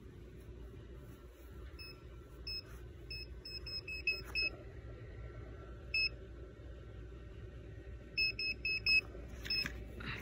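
Handheld metal detector beeping as its search coil sweeps back and forth over a buried metal target: short, high-pitched beeps, a couple on their own, then a quick run of about six, a single one, and another quick run of about five near the end.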